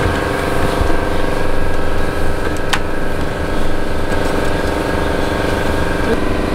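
An engine running steadily at idle, a constant mechanical hum with one brief click about three seconds in.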